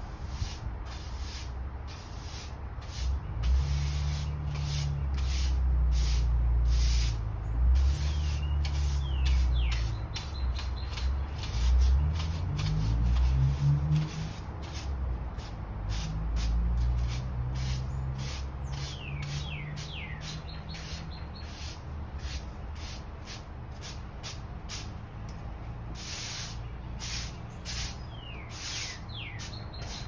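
Push broom sweeping dirt across a concrete floor in repeated short, scratchy strokes, with birds chirping in short falling whistles now and then. A low rumble runs under the first half and fades out.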